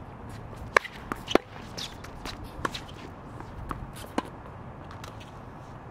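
Irregular footsteps and shoe scuffs on a hard tennis court, with a handful of sharp taps, the loudest about a second in. There are brief high squeaks around two seconds in.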